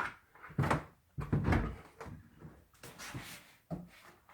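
Wooden trapdoor hatch with flooring screwed on top, opened by its recessed latch handle and lifted: a series of knocks and wooden scrapes, the heaviest about a second in.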